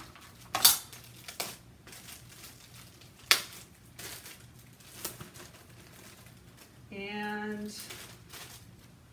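Clear plastic bag crinkling and rustling as it is handled, with a few sharp clicks and knocks of the metal embroidery frames against each other and the table; the loudest knock comes about three seconds in.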